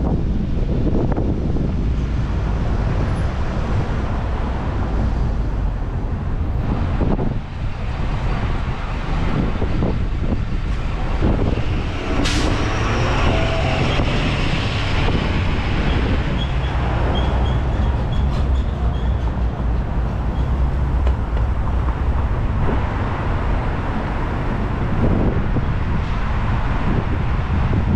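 Steady road and traffic rumble from a car driving through city streets, with one sharp knock about twelve seconds in.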